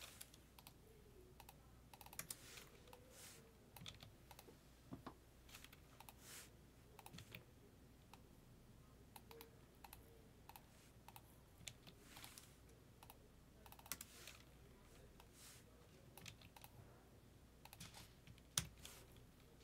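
Faint, irregular clicks and taps of a computer keyboard and mouse, scattered through an otherwise near-silent stretch.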